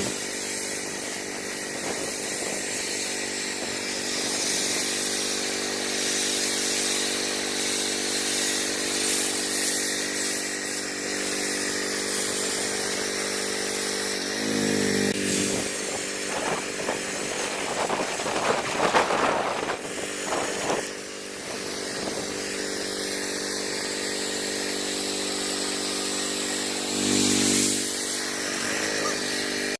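Commercial pressure washer's engine running steadily under the hiss of the water spray. Its note swells briefly about halfway through and again near the end.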